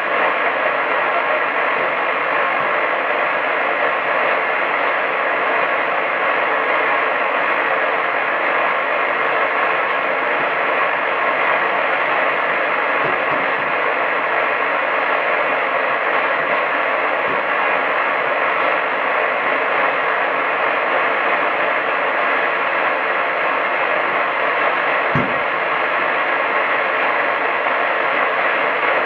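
Medium-wave AM radio receiver giving steady hiss and static with no programme audible. There is a brief low thump about 25 seconds in.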